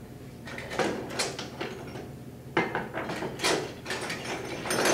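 Hand tools being rummaged through and picked up, knocking and clinking against each other in a series of short, irregular clatters.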